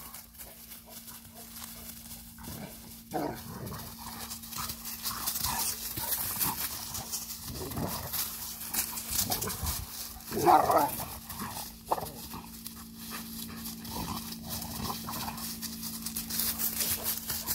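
Bullmastiff and Cane Corso play-fighting, with scattered short play growls, the loudest about ten seconds in. This is the dogs' rough-play growl, not aggression. Dry leaves crackle under their paws throughout.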